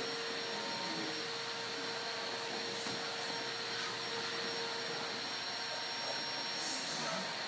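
Steady whirring machine drone with several steady tones in it, and a few faint scuffs about three and seven seconds in.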